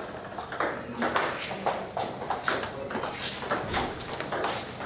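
Table tennis rally: the ball clicks sharply off the paddles and the table in a quick series of hits and bounces.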